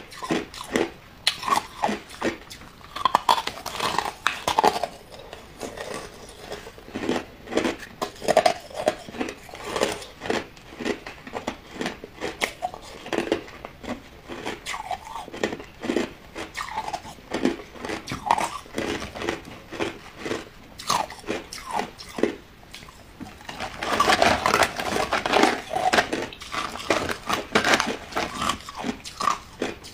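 Close-up crunching and chewing of hard white ice chunks, many sharp crunches a second, with a louder, denser run of crunches about three-quarters of the way through.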